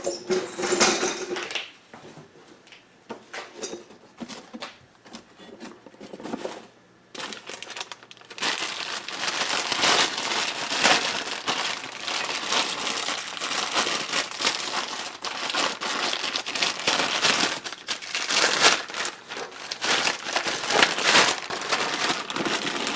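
Clear plastic bag crinkling steadily from about eight seconds in, as a wheel hub is wrapped in it and settled into a cardboard box. Before that, scattered light knocks and rustles of the hub and box being handled.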